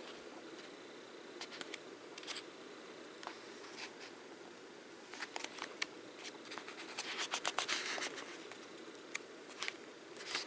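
Paper pages of a paperback sketchbook being turned and flipped by hand: scattered short paper rustles and flicks, thickest about seven to eight seconds in, over a steady low background hum.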